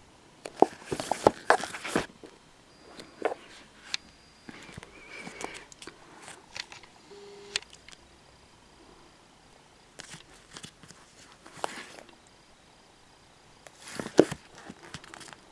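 Handling noise of manga volumes on a wooden shelf: short clusters of knocks, taps and rustles as the books are touched and moved. The loudest clusters come near the start and again near the end.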